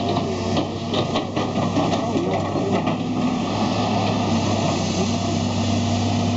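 A steady low engine hum under a constant background rush, with a few faint clicks early on.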